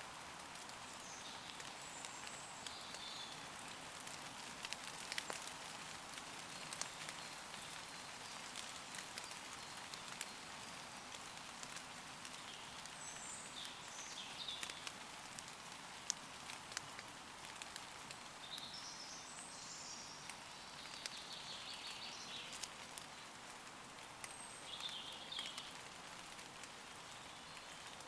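Steady gentle rain falling on leaves, a soft hiss with many separate drop ticks. Short high-pitched bird calls come in a few times over it.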